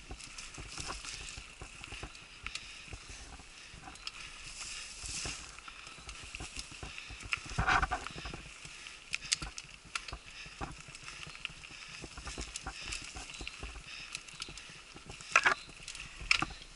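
Mountain bike rolling down a dirt singletrack, its tyres on the trail and its chain and frame rattling with a stream of small clicks and knocks over bumps. Two sharp, loud knocks come near the end.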